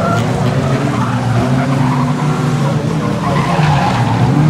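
Several 1600cc production saloon race cars racing round an oval, their engines running together in a loud, steady drone whose pitch wavers slightly.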